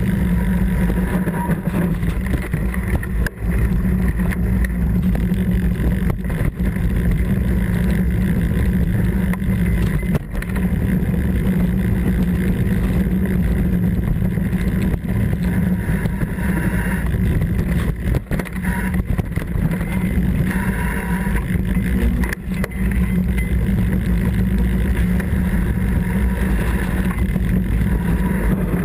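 Mountain bike riding over a rough trail: a steady loud rumble of tyres and wind on the camera microphone, broken every few seconds by sharp knocks and rattles as the bike hits bumps.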